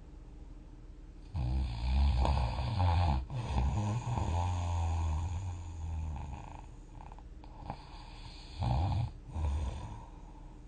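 A person snoring heavily in sleep: a long, loud snore starts about a second and a half in and runs for several seconds, broken once, then after a lull two shorter snores come near the end.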